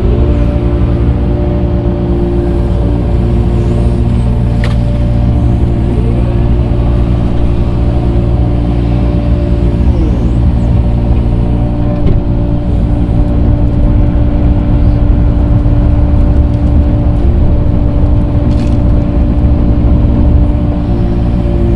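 Tractor engine running steadily at working speed, a loud constant rumble with a steady whine over it, as the machine grades and spreads dirt.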